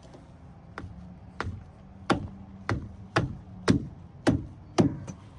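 A series of eight sharp knocks or taps, about two a second, the first two lighter and the rest harder.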